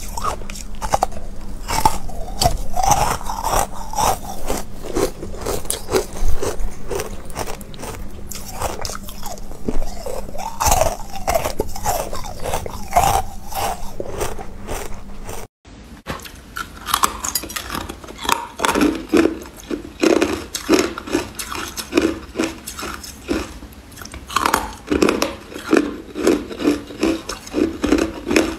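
Close-miked biting and crunching of carbonated ice chunks, with sharp cracks one after another. After a brief drop-out about halfway through, frozen ice is chewed with a regular crunch about twice a second.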